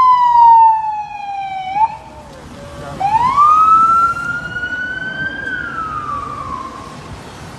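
Police car siren wailing: a long falling tone, a short break, then a quick rise about three seconds in that holds and falls again, growing fainter near the end.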